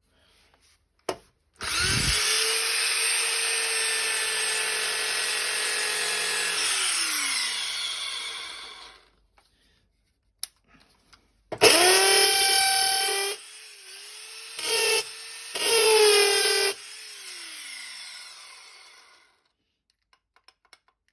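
Metabo corded drill-driver motor running freely twice. First it spins up to a steady whine for about five seconds and winds down. Then, after a couple of clicks, it runs again with the speed dropping and surging twice before it coasts to a stop.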